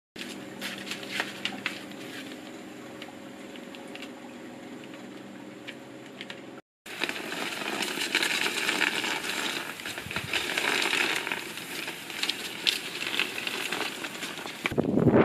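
Plastic pinwheels crinkling and clicking as they are handled and sorted, over a faint steady hum. After a sudden cut, a breeze with light rattling and clicking, and wind buffeting the microphone near the end.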